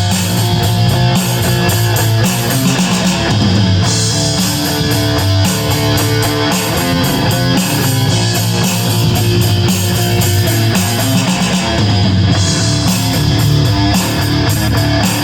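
Electric guitar played through distortion, a steady run of picked and strummed playing.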